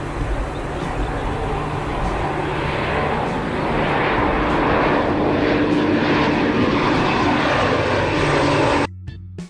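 Airbus C-295 twin-turboprop engines and propellers droning in flight, a steady drone that slowly grows louder and then cuts off suddenly near the end.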